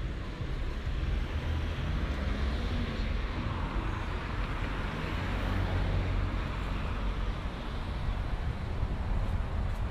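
Street traffic: a car passes, its road noise swelling to a peak about halfway through and then fading, over a steady low rumble.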